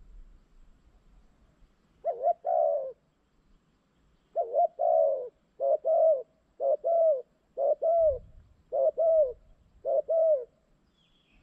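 A dove cooing: about seven short phrases of two or three quick, arching coos, starting about two seconds in and repeating roughly once a second.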